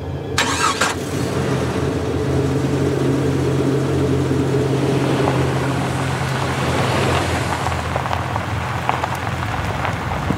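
Toyota Land Cruiser Prado SUV engine running with a steady low hum as the vehicle pulls away, its tyres rolling over cobblestones. The noise swells in the middle and then eases. There is a brief clatter about half a second in.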